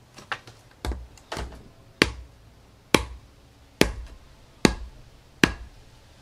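PVC T-handle fitting knocked down against concrete pavers about eight times to drive it onto the end of a fiberglass push pole. The first few knocks are lighter. The later ones are sharp, loud and evenly spaced, a little under a second apart.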